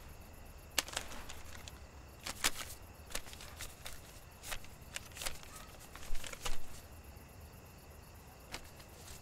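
Banknotes and a brown paper bag being handled: short, irregular paper crinkles and rustles, a dozen or so, over a faint steady hum.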